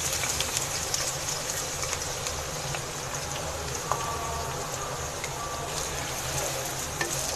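Freshly added sliced onions sizzling in hot oil in a pan: a steady hiss over a low hum.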